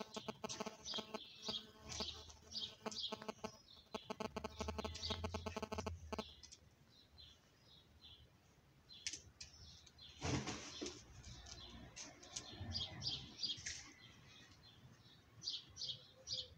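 Small birds chirping in short repeated notes, with a low hum in the first six seconds and a brief rustle about ten seconds in.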